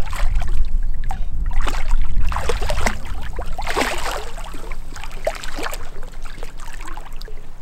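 A hooked fish thrashing and splashing at the water's surface near the bank as it is played in, with two louder bursts of splashing, the second about four seconds in. A low rumble runs under the first two seconds.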